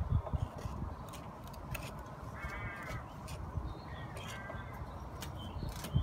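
A 10 mm spanner gives light metallic clicks and knocks as it works the nut on the car battery's negative terminal clamp, disconnecting the battery, over a low rumble. A short harsh call sounds twice, about two and a half and four and a half seconds in.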